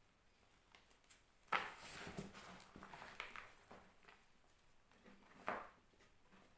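Reformed block of gym chalk being crushed: a sharp crunch about one and a half seconds in, a couple of seconds of crumbling, then a second crunch near the end.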